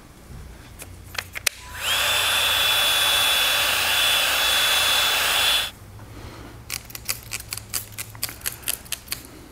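Milwaukee M18 compact cordless heat gun running for about four seconds: its fan whines up to a steady pitch at switch-on, runs with a steady rush of air and cuts off sharply. Then comes a quick series of spritzes from a hand trigger spray bottle, about four a second.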